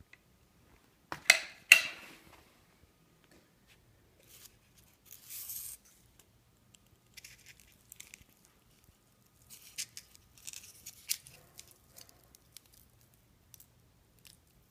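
Handling noises as a glue-beaded styrofoam square is pressed onto a thin luan plywood panel. Two sharp knocks come a second or so in and are the loudest sounds. Scattered rustles, scrapes and light clicks of foam against wood follow.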